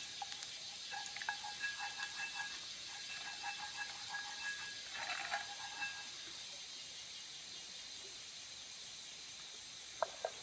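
Wooden utensil scraping and clicking around an oiled cast-iron skillet over a steady hiss, then two sharp wooden taps near the end.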